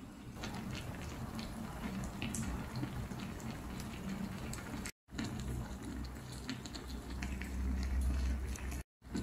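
Pot of army stew (budae jjigae) bubbling on a tabletop burner: a steady low rumble with many small pops and crackles, cut off briefly twice.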